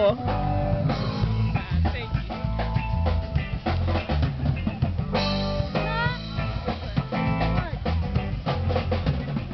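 Live rock band playing: a drum kit keeping a beat under electric guitars.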